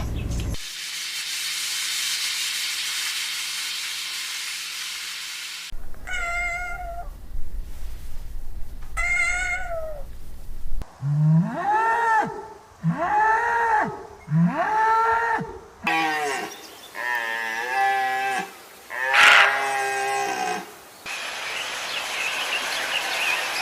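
Farm animals calling in a string of short clips cut one after another: two short wavering calls, then three arched calls in quick succession, then more calls, with noisy stretches at the start and end.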